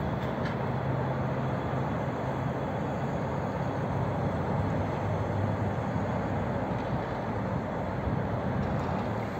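Aeroexpress ESh2 double-deck electric train running away along the track, a steady rumble of wheels and running gear with a low hum.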